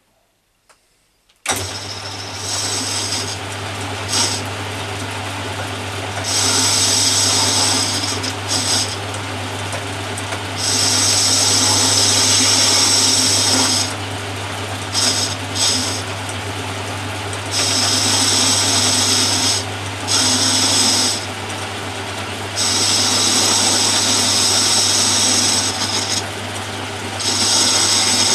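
Metalworking lathe switched on about a second and a half in, running with a steady low hum. A tool chamfers the face of a metal flange washer, and the high-pitched cutting noise comes and goes in stretches of a few seconds.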